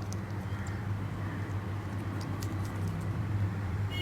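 A few faint small clicks from wires being fastened into the screw terminals of a weight transmitter, over a steady low hum.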